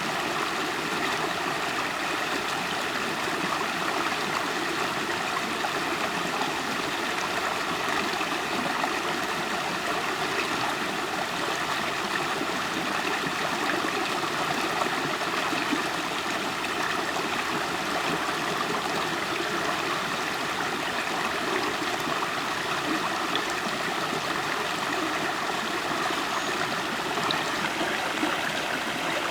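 River water flowing and gurgling steadily over rocks.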